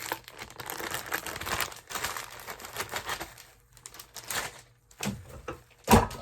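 Packaging crinkling and rustling as a new shirt is unpacked by hand, with a run of small clicks and crackles that thins out after about three seconds and a single loud knock near the end.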